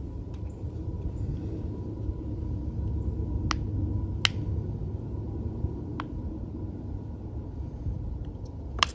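Plastic honey bottle clicking a few times as it is squeezed upside down over a mug of coffee, against a low steady rumble. The sharpest click comes near the end.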